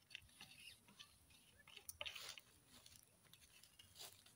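Faint crackling and sizzling from skewered pork shashlik grilling over glowing charcoal embers, with scattered small pops and ticks that are thickest about two seconds in.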